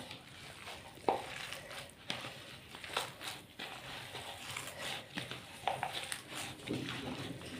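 A bare hand kneading and squeezing raw minced-meat mixture, bound with egg, bread and a little oil, in a plastic bowl: soft, irregular squelches and crackles.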